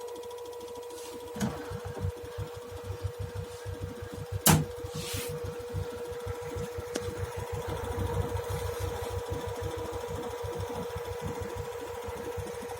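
LG FH2G6TD4 washing machine running with a steady hum and a rapid, uneven low knocking from the area of the emergency drain, the fault being shown; a sharp click stands out about four and a half seconds in.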